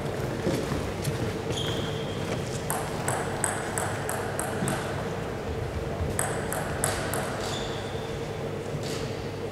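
Table tennis ball clicking on the table and bats: a quick run of short pings about four a second, then another cluster of hits as a rally gets going, over a steady low hum.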